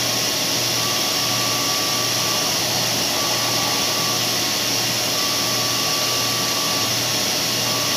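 Steady mechanical whir with a faint low hum and a faint higher tone that drops out and returns every second or two.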